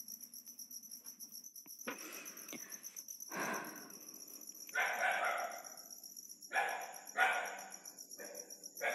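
Dogs barking and yelping several times, the calls coming one after another through the second half, over a steady high chorus of crickets.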